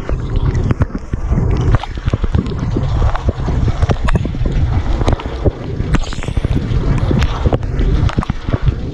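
Water spray inside a running Bosch dishwasher, heard from within the wash chamber: jets from the spray arms spatter against the camera and racks in many sharp ticks over a continuous low rumble.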